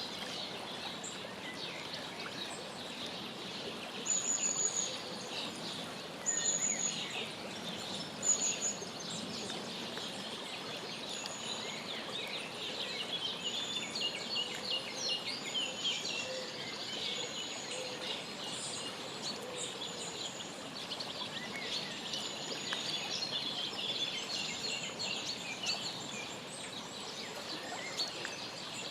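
Many short bird chirps and calls over a steady background hiss. A high, thin note repeats several times in the first nine seconds, and the chirping is busiest around the middle.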